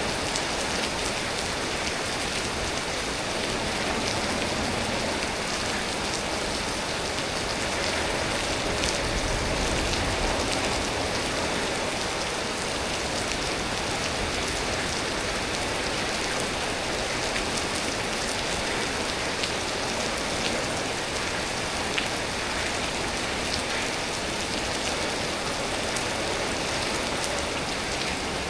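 Steady storm rain falling hard, with scattered drops ticking sharply on a surface.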